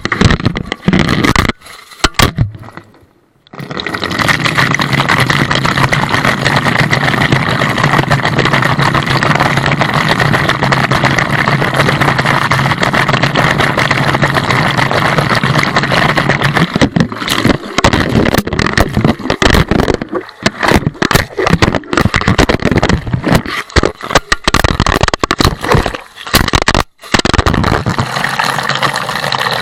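Washing machine running loudly: a steady low hum under a rushing, rattling noise, turning choppy and uneven about halfway through, with a couple of brief drop-outs.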